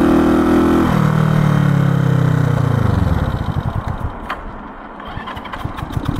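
1970 Honda CB350's parallel-twin engine running, then its pitch sinks steadily as the revs fall until it stalls at low rpm, typical of old stale gas, as the owner suspects. A string of uneven pops and knocks follows as it is turned over, and it starts to catch again at the very end.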